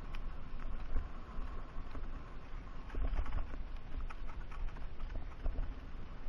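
Mountain bike descending a rough dirt singletrack, heard from a helmet-mounted camera: the tyres rumble over the ground and the bike rattles with frequent clicks and knocks over stones and roots, under a low wind rumble on the microphone. The rattling gets heavier about halfway.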